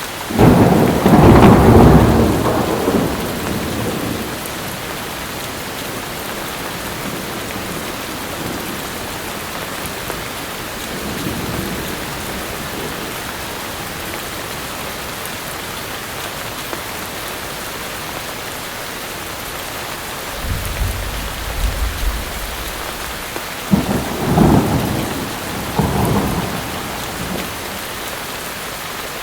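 Steady heavy rain with thunder: a loud clap that rumbles away over the first few seconds, a low rumble about two-thirds of the way through, and more peals near the end.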